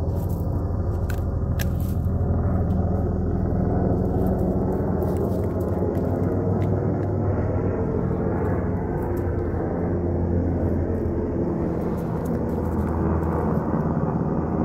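A steady low engine rumble runs throughout without rising or falling, with a few light clicks in the first couple of seconds.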